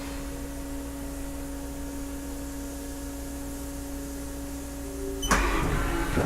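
Haas VF-1D vertical machining center running under test: a steady electrical hum with a steady whine, then about five seconds in a louder burst of mechanical whirring and clicking as the machine starts a move.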